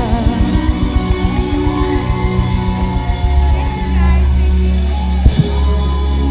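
Live band playing the song's instrumental ending: a steady drum beat, then a held low bass note from about three seconds in, and one loud hit with a cymbal wash about five seconds in.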